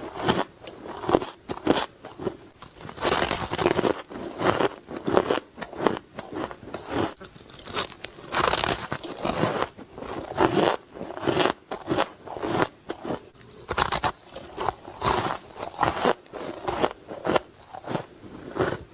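Close-up crunching of crushed ice being bitten and chewed, with a rapid, irregular run of sharp cracks and crackles, several a second.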